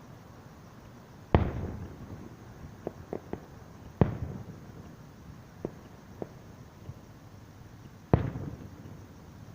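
Fireworks display: aerial shells bursting in three loud booms, each dying away over about half a second, with smaller sharp pops in between.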